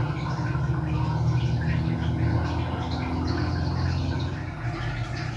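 Steady low hum of a running machine.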